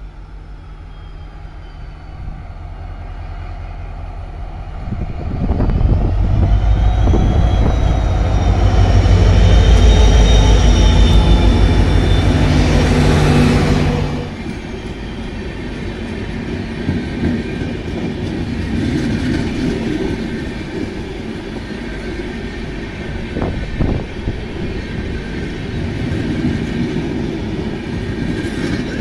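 WDP-4B diesel locomotive's 16-cylinder two-stroke engine working hard on the climb, with a high whine over its rumble. It grows louder as it approaches and passes close, then cuts away suddenly about halfway through. After that the passenger coaches roll past with steady wheel-on-rail noise and clickety-clack.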